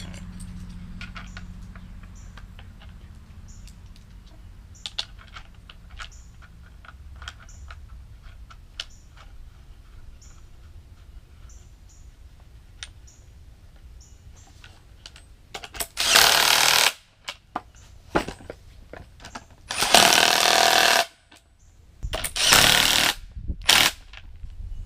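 Light clicks and taps of hand work on metal hardware, then three bursts of about a second each from a power tool tightening nuts onto threaded all-thread rod.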